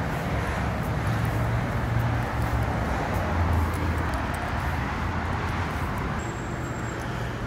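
Steady outdoor background noise: a continuous low rumble under a broad hiss, swelling a little in the first half, with no distinct events.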